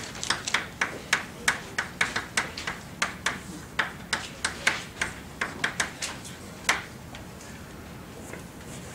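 Chalk writing on a chalkboard: a quick, irregular run of sharp taps and short scratches as letters are written, stopping about seven seconds in.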